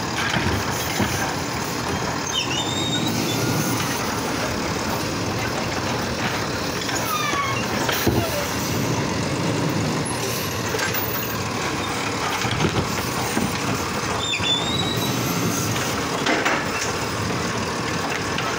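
Automated side-loader garbage truck running at the curb while its hydraulic arm grabs and lifts a trash cart: steady engine and hydraulic noise, with a few short squeals and occasional knocks of the cart and arm.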